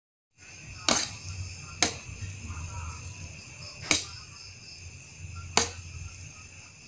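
Metal forks clinking sharply against a stainless steel tray four times, at uneven intervals, while noodles are tossed, over a steady low hum. A brief silence at the start.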